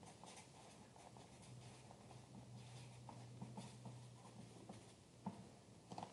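Near silence: faint room tone with a steady low hum, light scratching and small clicks, and one sharper click about five seconds in.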